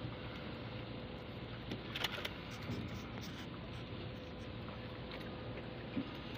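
Wet fishing net being hauled hand over hand over the side of a small boat: scraping on the gunwale and dripping water, with a few sharp knocks, the loudest about two seconds in. A steady low hum runs underneath.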